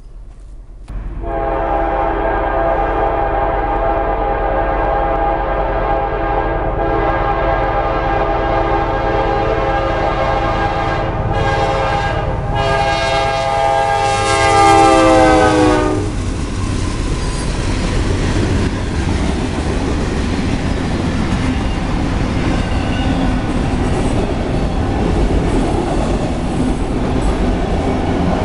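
A CSX diesel freight locomotive's multi-chime air horn sounds one long blast for about fifteen seconds, loudest and dropping in pitch as the locomotive passes the crossing. The horn then stops, and the freight train's autorack cars roll by with clickety-clack and wheel noise over the rails.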